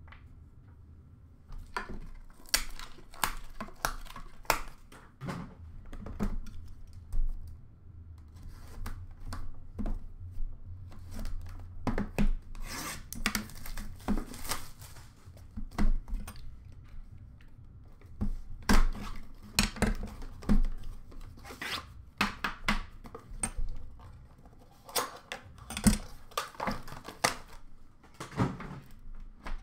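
Trading-card packaging being handled and opened: irregular rubbing and scraping of cardboard with light knocks as a hockey card box and its tin are unpacked and set down on a glass counter, starting about a second and a half in.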